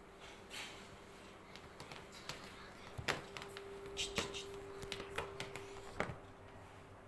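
A kitten's claws scrabbling and scratching on upholstery fabric: irregular light scratches and taps, busiest in the second half, over a faint steady hum.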